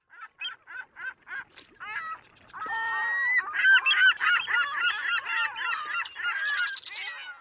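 A flock of geese honking: single honks about three a second at first, then from about two and a half seconds in many overlapping honks at once, louder.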